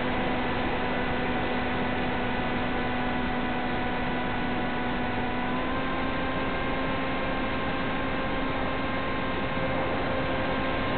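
Electric motor and propeller of an FPV model plane running steadily in flight, a whine of several steady tones over a constant hiss. About six seconds in the whine steps slightly higher in pitch as the throttle is opened and the motor draws more current.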